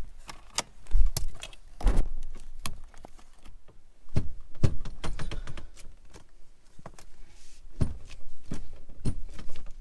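Ratchet and socket undoing the centre bolt of a Range Rover P38 steering wheel, with irregular metallic clicks, clinks and knocks as the bolt is turned and the wheel is worked off the column.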